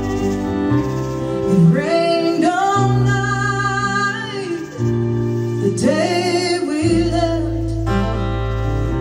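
A woman singing a folk song, accompanied by her own strummed acoustic guitar; two sung phrases with held, bending notes over steady guitar chords.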